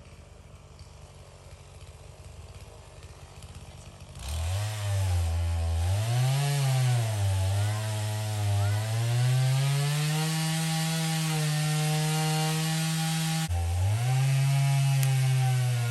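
Chainsaw engine coming in loud about four seconds in, its pitch rising and falling as the throttle is worked, then held high and steady as it cuts wood, with a brief drop and pick-up near the end.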